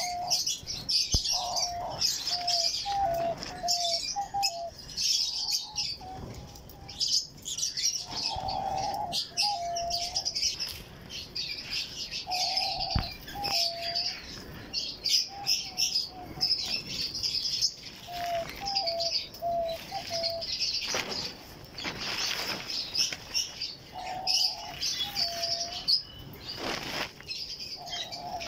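Diamond doves cooing in short phrases of a few stepped low notes, repeated every few seconds, over constant high, quick chirping from other cage birds. A few brief flutters of wings.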